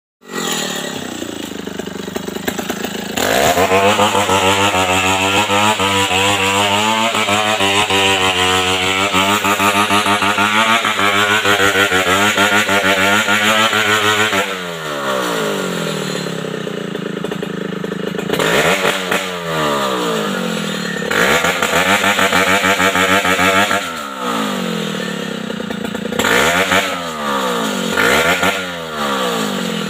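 Two-stroke chainsaw cutting into a Merbau tree trunk at steady full throttle for about ten seconds, then revved up and down again and again through the rest of the time.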